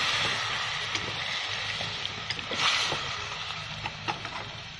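Pieces of scad sizzling in caramel sauce in a metal pot, with chopsticks clicking against the pot as the fish is turned. The sizzle swells near the start and again about two and a half seconds in.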